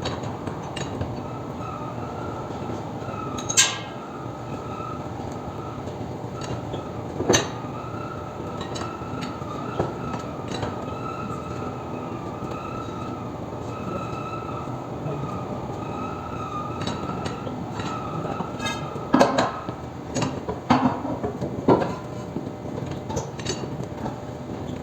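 Scattered metallic clinks and knocks of tools and metal parts: sharp ones about 3.5 and 7 seconds in and a quick cluster near the end. Under them runs a steady mechanical background hum with a faint wavering whine.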